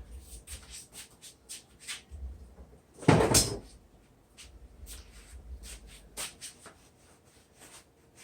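Scattered light clicks and knocks of parts and tools being handled on a bench, with one loud scraping clunk lasting about half a second, about three seconds in.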